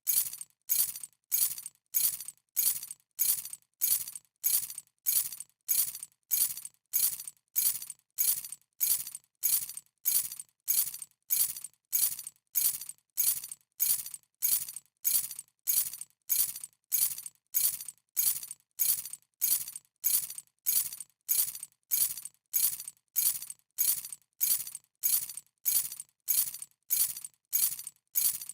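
A bunch of metal keys dropping and jingling, the same short jingle repeated over and over about three times every two seconds.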